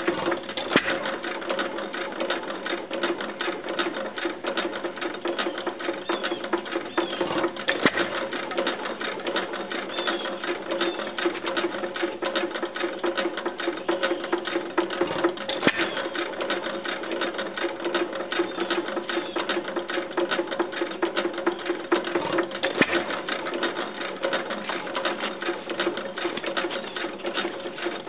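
1916 IHC Famous 3 hp hit-and-miss gas engine running with a steady, dense mechanical clatter, with a few louder knocks standing out.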